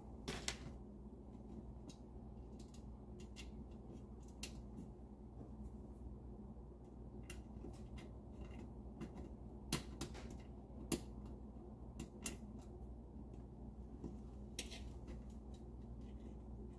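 Faint, scattered metallic clicks and ticks of bicycle spokes knocking against one another and the hub flange as they are threaded over and under during three-cross wheel lacing, over a low steady hum.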